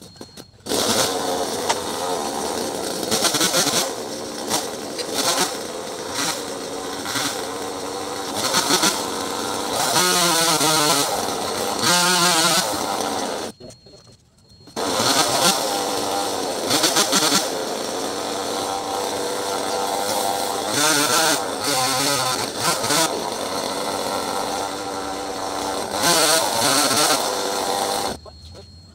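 Two-stroke chainsaw running at high revs and cutting into Java plum wood, the engine pitch rising and falling under load; it drops out for about a second halfway, then runs again.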